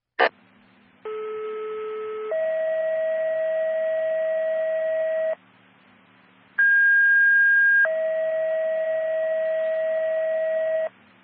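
Fire dispatch radio sending two-tone sequential station-alerting tones: two pages, each a steady tone of about a second followed by a longer tone of about three seconds, with a click as the channel opens. The tones set off the fire station's alerting for a call.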